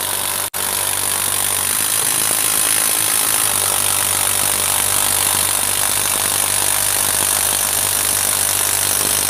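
Bosch PS41 12V cordless impact driver hammering steadily as it drives a long TimberLOK screw into a dense wood log, with a brief break about half a second in.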